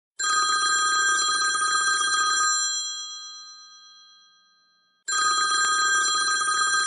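Telephone ringing: a ring about two seconds long with a fading tail, then a second ring starting about five seconds in, ahead of a call being answered.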